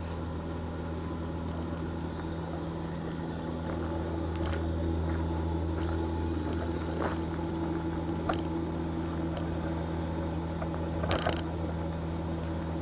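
Blower of an Ekomobiili wood-gas generator running with a steady, even hum during the gasifier's heat-up, with a few brief clicks over it.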